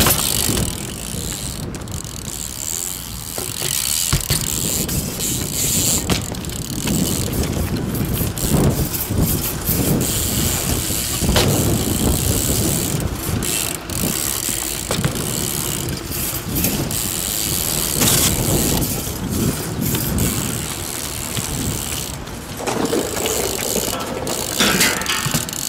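BMX bike being ridden: tyres rolling over paving and concrete, the rear hub freewheel ratcheting while coasting, with sharp knocks and landing impacts from tricks at several points.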